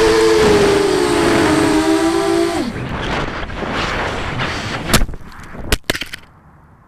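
FPV acro drone's electric motors whining, then winding down about two and a half seconds in as the motors lose power, which the uploader blames on a receiver failure. The drone falls with a rushing noise, then hits the ground in three sharp knocks.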